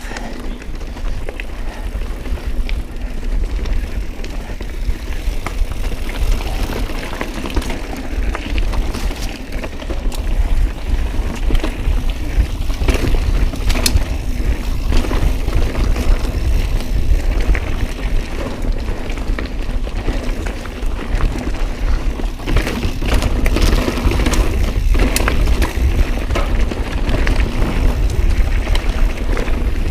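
Mountain bike riding down rocky singletrack: a continuous heavy low rumble of tyres and wind, with frequent clicks and knocks from the bike over rocks and roots.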